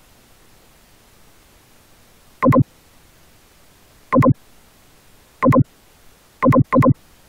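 Five short electronic blips over a faint steady hiss, the last two close together as a quick double. They are click sounds that mark mouse clicks in a computer file dialog.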